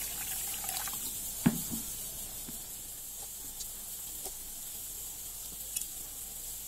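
Water poured from a plastic jug into a steel bowl of split moong dal, then a hand swishing the lentils about in the water. One sharp knock about one and a half seconds in.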